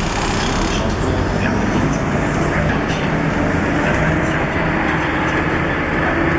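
Steady interior running noise of a Huanghai DD6181S03 city bus: engine and drivetrain drone with road noise as the bus moves slowly in traffic.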